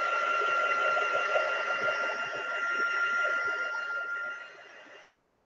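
Handheld craft heat gun running, a steady whirr of blown air with a constant motor whine, drying the paint on the card. About four seconds in it dies down and it cuts off just before the end as it is switched off.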